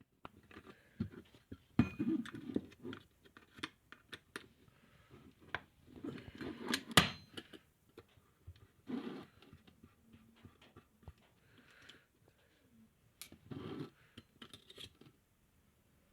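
Hard disk drive being handled while it is taken apart: scattered small metal clicks, taps and scraping as parts and the cover are worked loose, with sharper clicks about two and seven seconds in.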